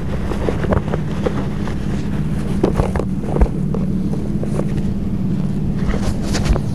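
A steady low motor-like drone with wind buffeting the microphone, and scattered light clicks and rustles of hands working the hook out of a landed snakehead.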